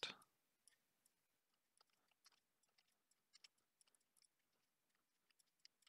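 Near silence, with faint scattered clicks of a computer mouse and keyboard.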